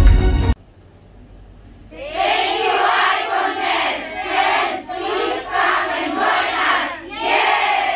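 A large group of people shouting and cheering together in repeated bursts, starting about two seconds in, after background music cuts off about half a second in.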